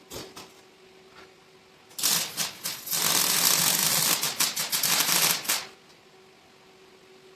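Welding arc crackling on the truck's steel frame in one run of about three and a half seconds, starting about two seconds in, after a brief crackle at the very start.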